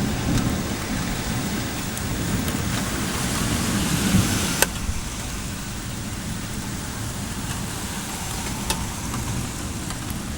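Steady rain during a thunderstorm, with a low thunder rumble in the first half that dies away after about four and a half seconds, leaving the rain hiss with a few sharp drip clicks.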